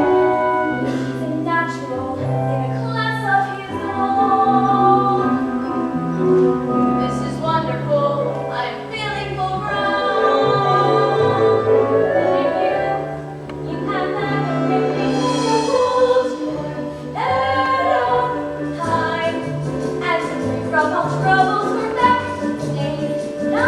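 A group of young voices singing a musical-theatre number together, over instrumental accompaniment.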